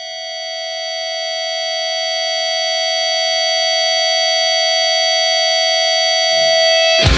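A single high electric guitar note held as distorted feedback, swelling steadily louder. About six seconds in a low note joins, and just before the end the full band comes in.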